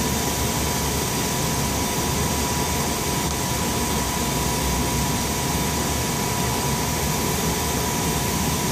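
Steady machine hum and hiss of equipment running in a jet cockpit, with a thin steady whine; it does not change.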